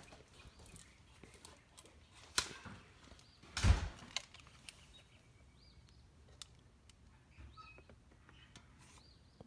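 Two knocks, the second a heavier thump with a deep thud, against a quiet background with faint bird chirps.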